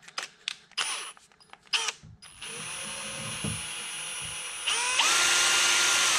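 Power drill spinning an engine valve clamped in its chuck, to check the valve stem for bend. A few clicks come first, then the drill runs at low speed from about two seconds in, speeds up louder and higher near five seconds, and stops at the end.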